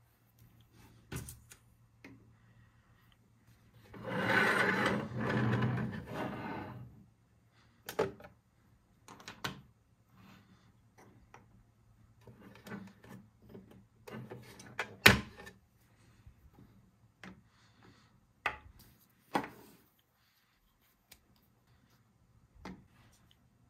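Small plastic toys being handled and set down on a tabletop: scattered light clicks and taps of plastic figures and cups. A stretch of rubbing starts about four seconds in and lasts about three seconds, and one sharp click, the loudest sound, comes about halfway through.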